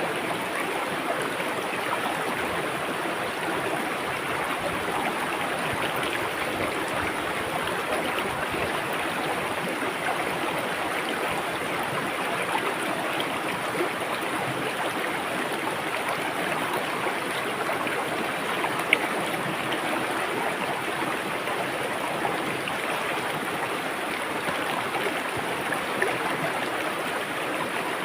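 River water rushing and gurgling steadily over rocks, with a brief sharper splash about two-thirds of the way through.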